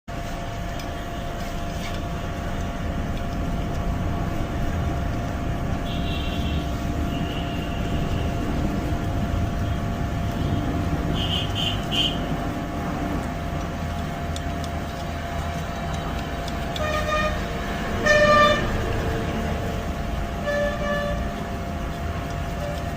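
Steady traffic rumble with vehicle horns honking in short toots, the loudest about 18 seconds in and others a second before and near 21 seconds.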